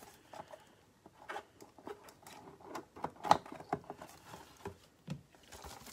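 Gloved hands handling a hard clear plastic card case as it is taken out of its cardboard box: faint scattered clicks, taps and rustling, with one louder tap about three seconds in.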